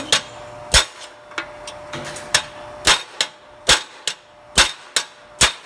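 Hammer tapping a Phillips screwdriver used as a punch to drive out a drilled-off rivet from an appliance dolly's cross member: about eight sharp strikes at uneven spacing.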